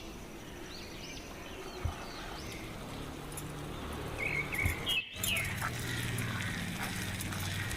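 Small birds chirping in short, repeated arched chirps. A brief dropout in the sound about five seconds in is followed by a low steady hum.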